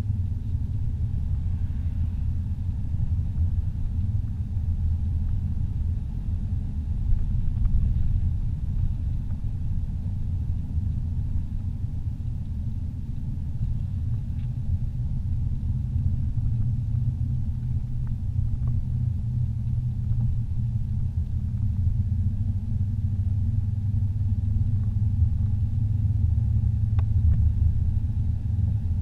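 Steady low rumble of a car driving along a paved road, heard from inside the cabin: engine and tyre noise.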